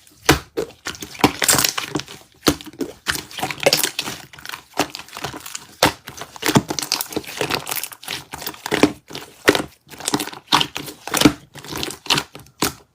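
Slime being squeezed and pressed by hand, giving an irregular run of crackly pops and clicks.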